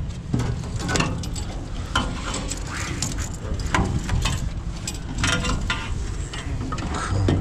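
Irregular clicks and knocks of metal tools and parts being handled while rubber mounting grommets and bushings are fitted to a refrigeration compressor, over a low steady hum.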